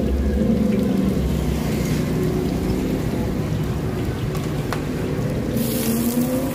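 A motorbike engine idling close by, a steady low hum. Near the end a loud sizzling hiss starts suddenly: batter hitting a hot bánh xèo pan.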